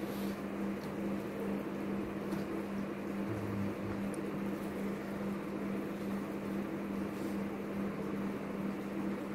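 A steady machine hum with one constant low tone and an even hiss, unchanging throughout.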